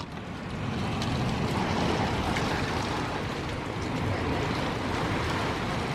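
Strong thunderstorm wind gusts, a steady rushing noise that builds a little in the first second and then holds.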